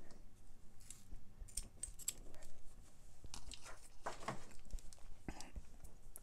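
Scissors snipping a black fabric ribbon off a plastic bead necklace, then the plastic beads being handled in the fingers: a few faint, short clicks and snips spread through, with a brief rustle about five seconds in.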